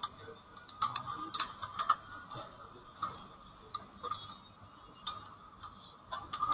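Computer keyboard being typed on: sparse, irregular keystroke clicks with short pauses between them.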